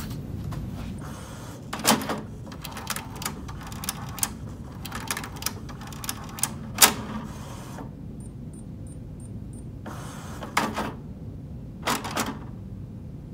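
HP DeskJet inkjet printer's mechanism clicking and clacking in irregular bursts as its carriage and gears move after new ink cartridges have been installed. A short row of faint high ticks comes about two-thirds of the way through.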